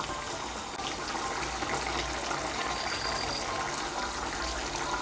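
Fish curry bubbling steadily in a kadai over raised heat, a watery simmer with small pops, while a spatula stirs through it.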